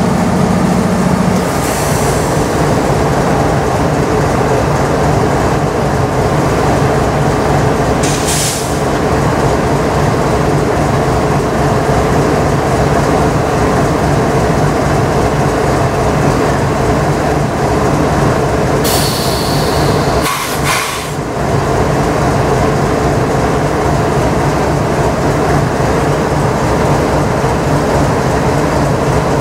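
GE C44-9W diesel-electric freight locomotive running steadily at close range, a loud constant low hum. A few brief high hisses break in, near the start, about eight seconds in, and around twenty seconds in.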